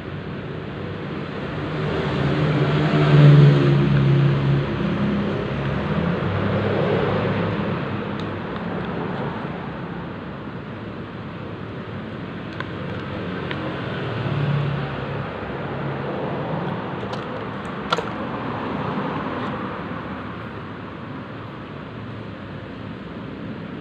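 Road traffic noise, swelling twice as vehicles pass, with a single sharp click near the end.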